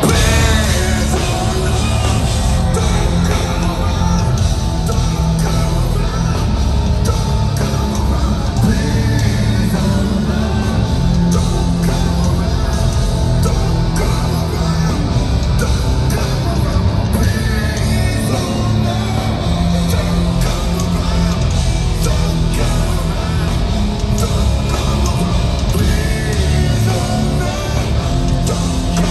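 Metal band playing live at full volume: distorted guitars, drums and bass, with a singer singing and yelling over them. The band kicks in suddenly at the start.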